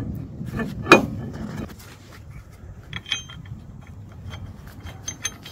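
Metal clinks and rubbing as a steel half-shaft flange is turned against the hub and slid over the wheel studs, with one sharp metallic knock about a second in and lighter clicks and faint pings after.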